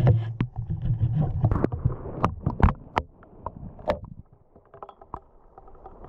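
Muffled underwater sound from a GoPro lowered through an ice-fishing hole: a low rumble for the first couple of seconds, with scattered clicks and knocks that grow sparser and fainter after about four seconds.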